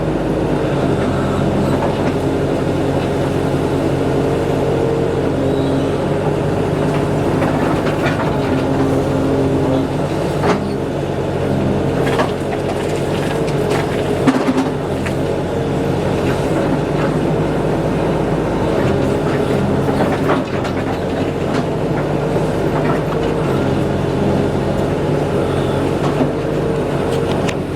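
Engine of a tractor-type earth-moving machine with a blade running steadily, with a few sharp metallic clanks, around ten, twelve, fourteen and twenty seconds in.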